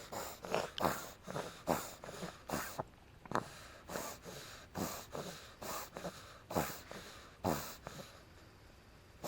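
Five-month-old pug puppy snorting with each breath, about one to two sharp snorts a second, trailing off near the end. It is laboured breathing in a reverse-sneezing episode, the puppy still struggling to breathe.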